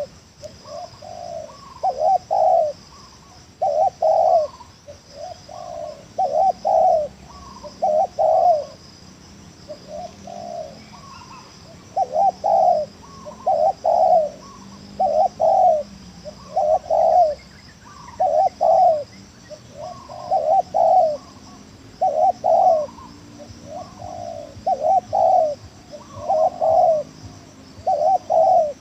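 Spotted dove (tekukur) cooing over and over, in short phrases of two or three low notes repeated every second or two.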